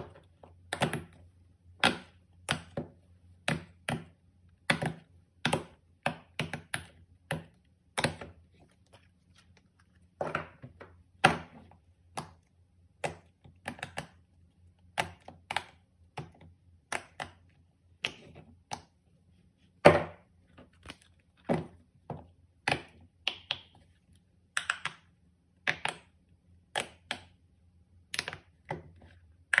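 Silicone pop-it fidget toys handled and set down on a tabletop and cardboard boxes: irregular sharp taps and soft thuds, about one or two a second, over a faint low hum.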